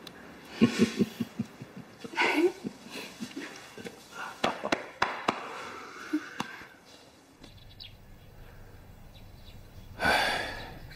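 Laughter: a quick run of short laughs, then softer voice sounds and a few light clicks. After about seven seconds it drops to quiet room tone, and a voice comes in near the end.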